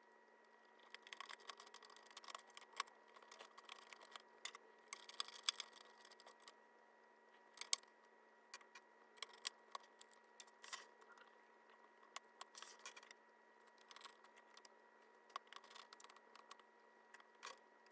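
Faint clicks, taps and light scraping of plastic and metal laptop parts being handled while a replacement screen is fitted into a ThinkPad T41, with one sharper click about eight seconds in.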